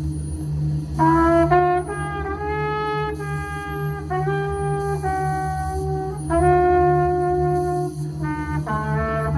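Trumpet playing a slow improvised line of held notes over a steady low electronic noise drone. The trumpet comes in about a second in, with a few short notes near the end.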